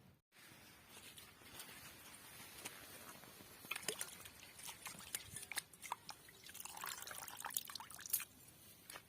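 Water pouring and dripping, with many small clicks and knocks that come thickest in the second half.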